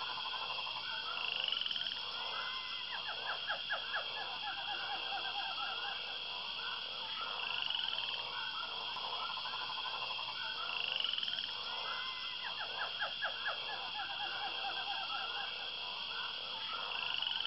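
Frogs croaking: rapid pulsed trills in recurring bouts over a steady high-pitched hum, the same cycle coming back every several seconds.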